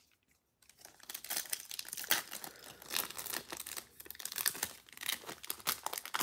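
Foil wrapper of a Panini Prizm football card pack crinkling and tearing as it is ripped open by hand, starting about a second in and continuing as a dense run of crackles.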